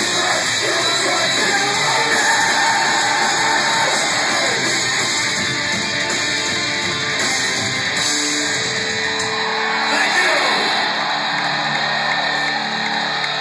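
Metalcore band playing live: electric guitars with shouted and sung vocals, loud and unbroken.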